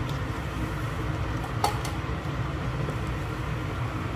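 Steady low rumble of a gas hob under a wok of fish-head curry heating up, with one sharp clink of a utensil against the pan about one and a half seconds in.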